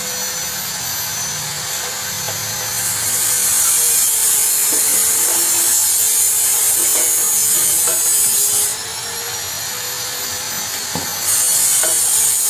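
Gas welding torch hissing, louder in two stretches: from about three seconds in until nearly nine seconds, and again after a click about eleven seconds in. A faint steady hum and a few light knocks of metal being handled run beneath it.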